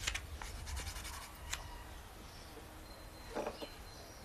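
Cloth rustling with small handling clicks as a white sheet is drawn off a clay bust, and a short scuff about three and a half seconds in.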